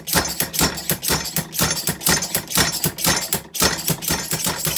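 Slide hammer with a seal puller being worked rapidly back and forth, repeated sharp clacks several a second, to pull a stuck oil seal out of a 1959 10 hp Evinrude outboard's lower-unit bearing carrier.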